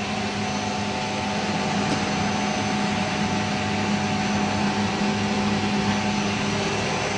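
Twin-screw food extruder line for puffed snacks running under test: a steady machine hum with a low drone and fainter higher tones over a constant hiss.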